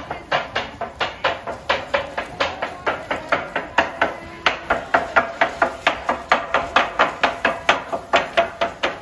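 Candy makers' knives knocking on wooden cutting boards in a fast, steady rhythm, about four to five knocks a second. This is the tontoko beat of chopping stick-shaped throat candy (sekidome-ame) into pieces.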